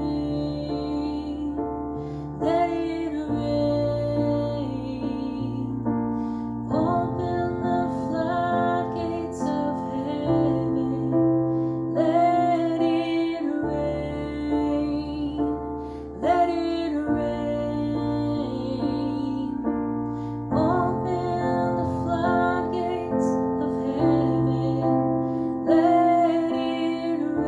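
A woman singing with vibrato, accompanying herself on an electronic keyboard that plays sustained chords changing about every three to four seconds.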